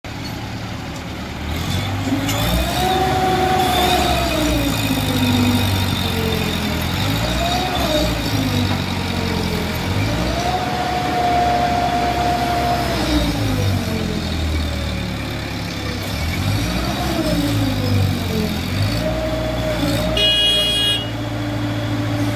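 Diesel engine of an ACE hydra pick-and-carry crane revving up and falling back several times as the crane drives and manoeuvres, with one long held rev in the middle. A brief high tone sounds near the end.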